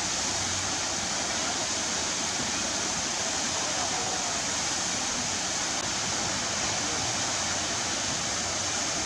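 Waterfall: a steady, dense rush of falling water that does not change.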